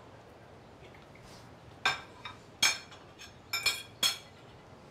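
Ceramic plates and metal cutlery clinking as dishes are cleared from a table: a handful of sharp, ringing clinks, spread over the second half.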